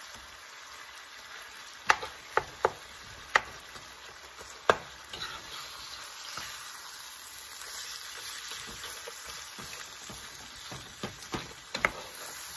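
Ground beef and sausage with chopped vegetables sizzling as they brown in a pan, stirred with a metal spoon. The spoon clinks sharply against the pan several times, from about two seconds in and again near the end.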